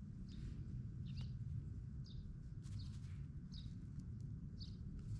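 A bird chirping over and over, short high calls roughly once a second, over a steady low background rumble.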